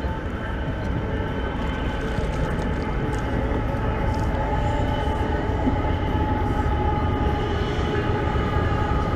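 Boat motor running steadily: a constant low drone with a thin whine over it.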